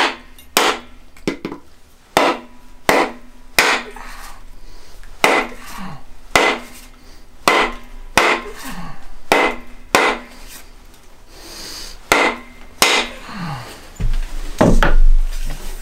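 A big mallet striking the end of a wooden axe handle to drive and seat a vintage Swedish axe head onto it. There are about fifteen sharp knocks, roughly one a second and not quite evenly spaced, and some leave a brief ring.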